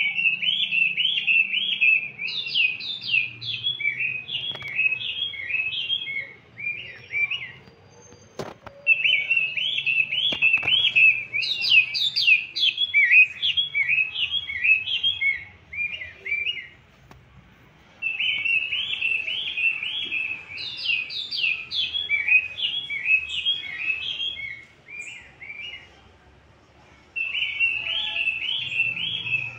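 Bird chirping: a rapid run of short, high chirps lasting about eight seconds, repeated four times with a brief pause between each run.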